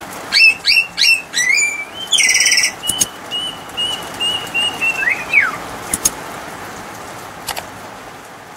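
A songbird calling: three sharp falling whistles, a rising whistle and a short buzzy rasp, then a run of quick repeated whistled notes ending in a falling slur. Two or three sharp clicks sound through it.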